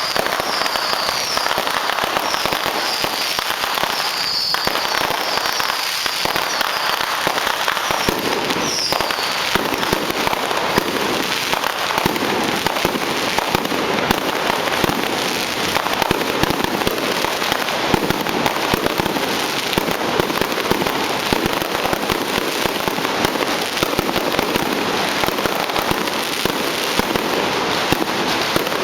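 Long strings of firecrackers going off in a dense, continuous crackle of rapid pops. This is the barrage set off to announce the Matsu procession.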